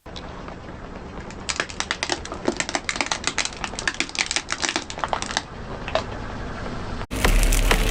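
A car tyre rolling slowly onto a crunchy object and crushing it: a quick run of crackles and snaps over the car's low steady engine hum. The crackling stops, and near the end a sudden cut brings in a louder crushing sound.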